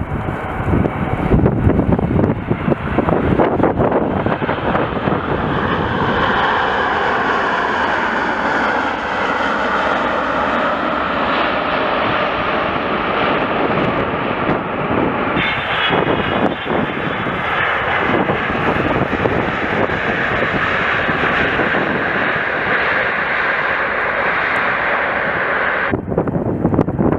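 Jet airliner's engines whining loudly on landing approach, the engine tone sliding in pitch as it passes and then holding steady. Wind rumbles on the microphone at the start. The sound cuts off suddenly near the end.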